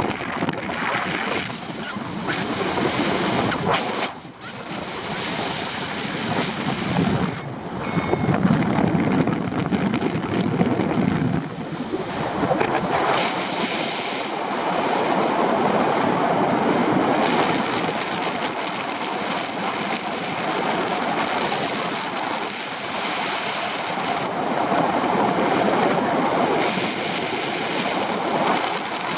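Airflow rushing over the microphone of a paraglider in flight: a steady wind noise that swells and dips.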